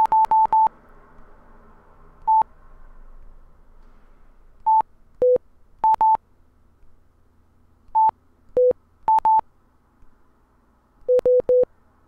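Gboard Morse code keyboard beeping with each key tap: short higher beeps for dots and lower beeps for dashes. They come in groups that spell H-E-L-L-O: four high beeps, one high, then high-low-high-high twice, and three low beeps near the end.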